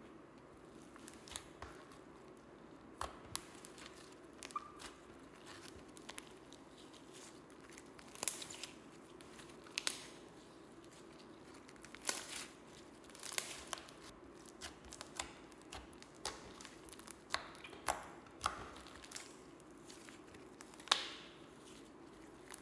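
Slime mixed with clay being squeezed, stretched and kneaded by hand, giving irregular sticky pops and crackles every second or so over a faint steady hum.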